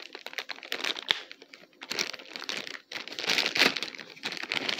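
Plastic toy packaging crinkling and rustling in irregular bursts as a Happy Meal toy's wrapper is handled and opened, louder about three seconds in.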